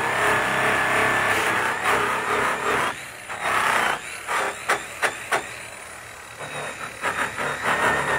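Electric angle grinder spinning a buffing pad against a truck's aluminium hood: a steady motor whine whose pitch wavers under load. It eases off in the middle with a few sharp clicks, then runs up again near the end.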